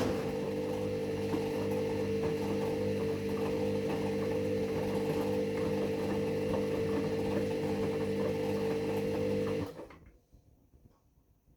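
A steady mechanical hum with a fixed mid-pitched tone and its overtones, like a small motor running, which cuts off abruptly near the end.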